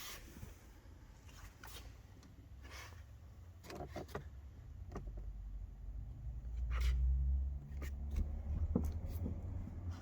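Scattered clicks and knocks of car interior parts being handled and taken apart, over a low rumble that swells about seven seconds in.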